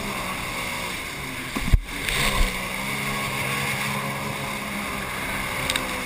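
Jet ski engine running steadily at speed, with wind and water spray rushing past. One loud thump sounds just under two seconds in.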